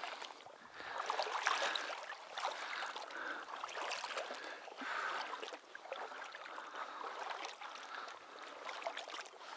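Shallow marsh water swishing and sloshing in uneven surges as someone moves through it.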